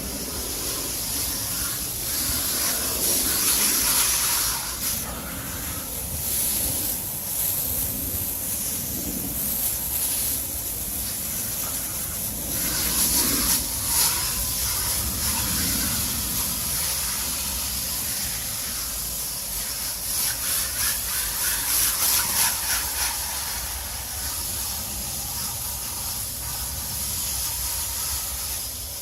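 Water spraying from a garden hose onto an AC coil, a steady hiss that swells and falls in loudness.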